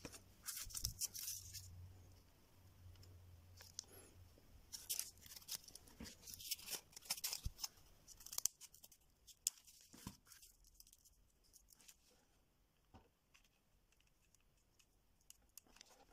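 Faint crafting noises: scissors trimming a bundle of wooden sticks, with scraping, rustling and small clicks in irregular bursts, busiest in the first half and sparse near the end.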